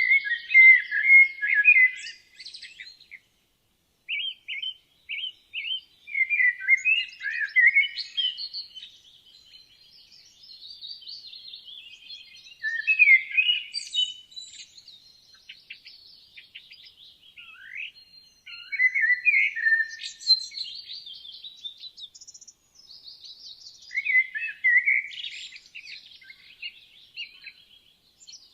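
Woodland songbirds singing: varied, warbling phrases of one to three seconds that come every few seconds with short pauses between them, plus fainter chirps and a thin high note from other birds in the background.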